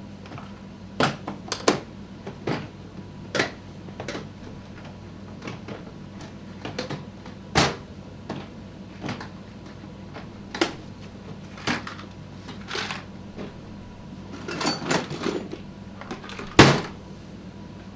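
Irregular knocks and clatters of hard objects, tools or parts, being handled and set down. There are about fifteen of them, the loudest near the end, over a steady low hum.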